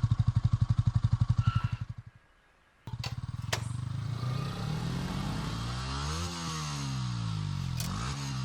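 A small engine running with a fast pulsing beat that cuts off about two seconds in. After a moment of near silence it starts again with a sharp click and runs on, its pitch rising and then falling.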